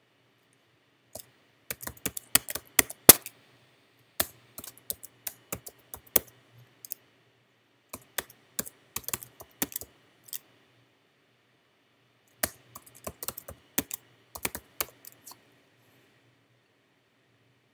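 Typing on a computer keyboard: runs of quick keystrokes separated by short pauses, stopping a couple of seconds before the end.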